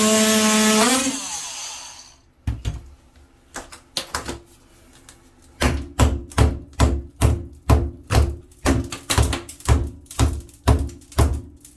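Ryobi 18V One+ brushed oscillating multi-tool cutting tile grout with a steady whine and grinding hiss. It is switched off about a second in and winds down, falling in pitch. A few scattered knocks follow, then from about halfway through a regular run of knocks, roughly two and a half a second, each with a short ring.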